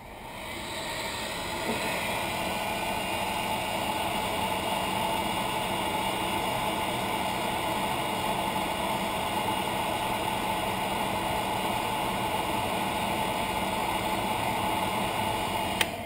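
Hot air gun blowing steadily as it shrinks heat-shrink tubing over soldered connector joints; its fan spins up over the first couple of seconds, and it is switched off with a click just before the end.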